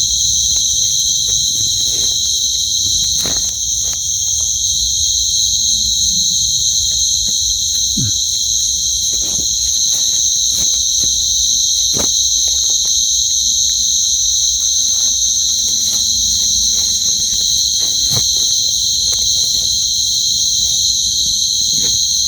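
Night insect chorus of crickets, a loud, unbroken high-pitched trilling on two steady pitches, with scattered small clicks and rustles underneath.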